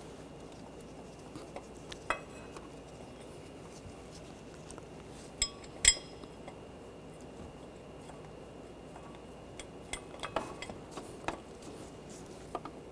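Scattered light metallic clicks and clinks as bolts are threaded by hand into a water pump pulley. The loudest pair comes about six seconds in, and a cluster follows near the end.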